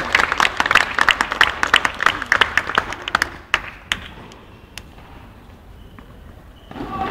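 Small crowd applauding a point in a tennis match: dense hand-clapping that thins out about three seconds in, leaving a few stray claps.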